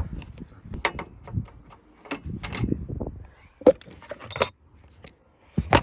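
Metal hand tools clinking and rattling, sockets and a ratchet being handled, with a couple of sharper metallic knocks, one about halfway through and one near the end.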